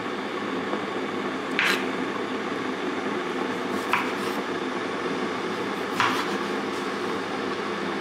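Three short knocks of kitchenware, about two seconds apart, over a steady hiss.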